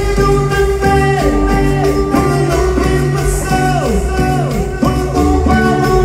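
Live cumbia band playing with electric guitar, bass, keyboards and drums; the lead line keeps sliding down in pitch over a steady bass and drum beat.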